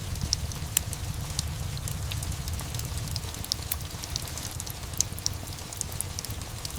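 Wood fire crackling with scattered, irregular sharp pops over steady rain, with a low rumble underneath.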